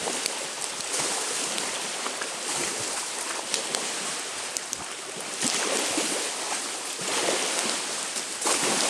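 Lake waves washing onto the shore in swells every second or two, with a campfire crackling in short sharp pops over the rush.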